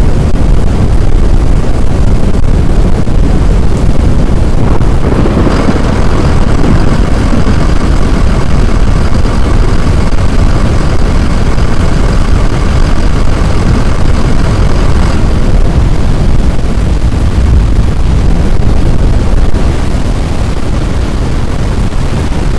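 Loud, steady low rumbling noise. Faint steady high tones join it from about five seconds in and stop about fifteen seconds in.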